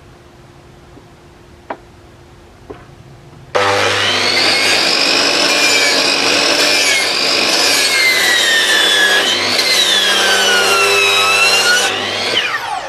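A handheld power tool, working on the vise during its restoration, starts abruptly about three and a half seconds in and runs loudly, its pitch wavering and dipping as it bears on the work. Near the end it is switched off and its whine slides down as it winds down. A few light clicks come before it starts.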